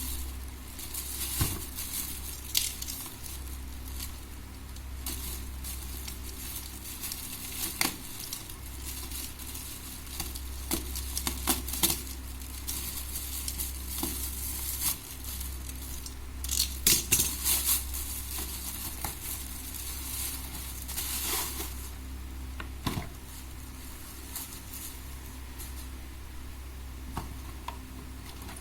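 Unboxing a set of plastic speed-stacking cups: packaging crinkling and rustling in irregular bursts, with scattered sharp clicks and knocks of hard plastic, over a steady low hum.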